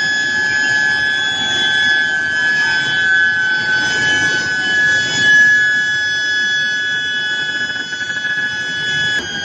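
Steel billet induction heating furnace running: a loud, steady high-pitched whine over a low machinery rumble. The pitch shifts slightly near the end.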